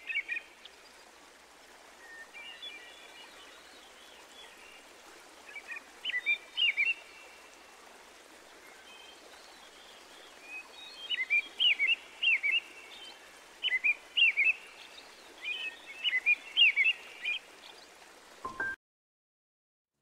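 Birds chirping in scattered clusters of short, quick rising-and-falling notes over a steady background hiss; all sound cuts off suddenly near the end.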